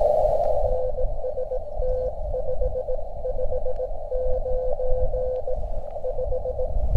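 Morse code (CW) from the LNR Precision LD-11 transceiver: a steady tone of about 500 Hz keyed in dots and dashes over band hiss, a station sending a signal report of RST 559.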